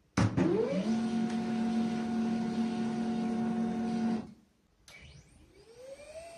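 HP Laser MFP 135w laser printer's motor spinning up with a rising whine and settling into a steady mechanical whir, then stopping about four seconds in. Just under a second later a second, quieter spin-up begins, its whine rising and levelling off near the end.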